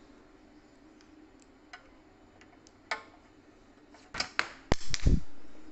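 Handling of the hybrid inverter's cover panel as it is being opened: a few faint clicks, then a cluster of sharper clicks and knocks about four seconds in, ending in a dull thump.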